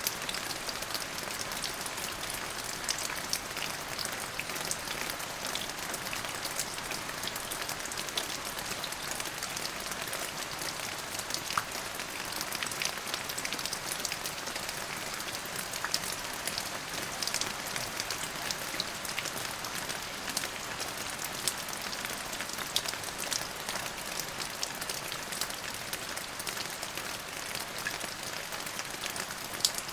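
Steady rain falling, a continuous hiss dotted with many individual drops ticking on a hard surface.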